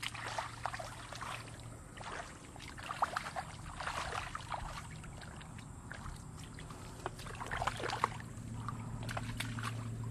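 Hands splashing and sloshing in shallow muddy water, groping for fish in irregular bursts of small splashes and drips. A steady low hum runs underneath and grows louder near the end.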